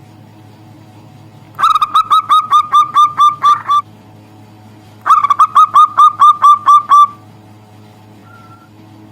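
Zebra dove (perkutut) giving two bouts of rapid staccato call notes, about ten evenly spaced notes each at roughly five a second, over a faint steady low hum.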